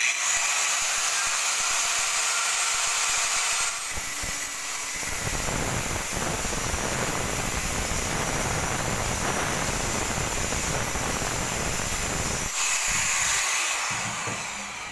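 Electric angle grinder with a cutting disc starting up and spinning with a high whine, then cutting through a steel flat bar from about four seconds in, with a harsher, rougher grinding noise. Near the end the disc comes free of the metal, whines on its own, and winds down.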